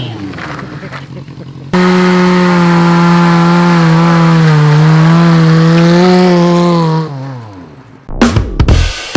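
Motorcycle engine revving, then held at high revs for about five seconds with a slight waver in pitch before the revs drop away. Music with a strong beat starts near the end.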